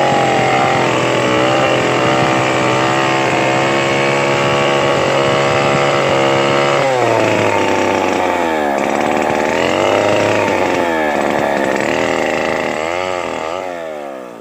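Two-stroke chainsaw running at a steady high speed, then its engine speed drops about halfway through and surges up and down several times before the sound fades out.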